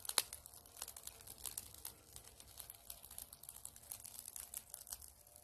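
Wood campfire crackling and popping: a dense run of sharp, irregular snaps and crackles, with a few louder pops.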